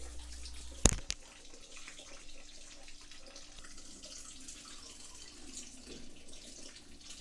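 Cloudy, starchy rinse water being poured off washed rice from a stainless-steel bowl into a stainless-steel sink: a faint, steady splashing trickle. A sharp knock about a second in.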